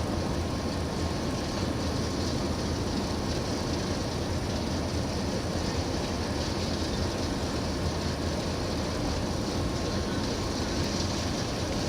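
Steady, even low rumble with a hiss over it, the sound of a vessel under way.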